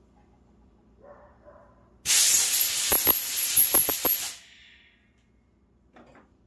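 Compressed air from an air hose blowing into the spark plug hole of a Neotec top-handle chainsaw, a loud hiss of about two seconds starting about two seconds in, with several short pulses near its end, to clear debris out of the cylinder.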